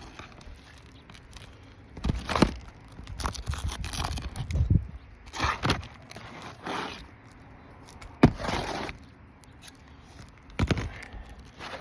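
Asphalt roofing shingle being slid and worked into place among old, brittle shingles: gritty scraping and crackling in short bursts, with a few sharp knocks, about two seconds in, about eight seconds in and near the end.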